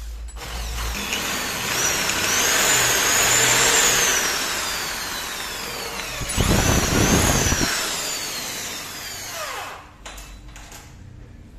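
Corded electric hand drill boring into a broken bolt in a motorcycle fork's lower triple clamp, drilling it out; the motor's whine wavers under load. A louder, rougher stretch comes about six seconds in, and near the end the motor winds down as the trigger is let go.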